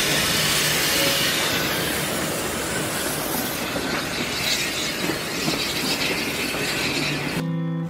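A steam-hauled train passing close by on the next track, heard from the open window of a moving carriage: the locomotive, then its carriages rushing and rattling past in a steady, loud wash of noise. An acoustic guitar comes in right at the end.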